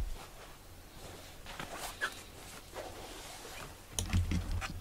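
Soft, short cat calls, with a knock and a low rumble about four seconds in.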